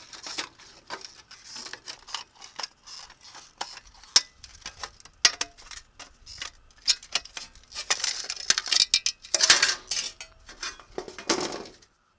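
Tin snips cutting corrugated sheet metal: an irregular run of sharp metallic snips and crunches as the blades bite through the ribbed sheet, with louder scraping, crunching stretches about eight and eleven seconds in.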